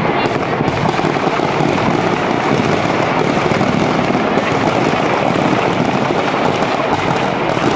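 Firecrackers packed inside a burning Ravan effigy going off in a dense, continuous crackle.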